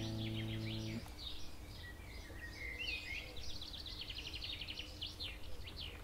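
The bandoneón's last held chord fades and stops about a second in, leaving wild birds singing: quick chirps, trills and rapidly repeated notes.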